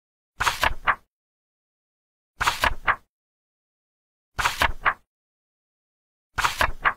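A page-turn sound effect, a short papery flip of about half a second, played four times at even two-second intervals in dead silence.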